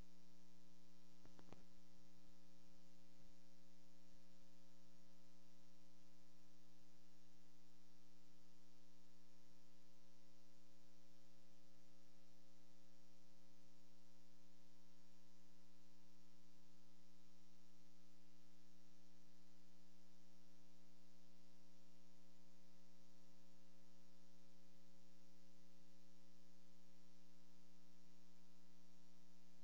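Steady electrical hum in the audio feed: several steady tones at once, unchanging, with a faint click about a second and a half in.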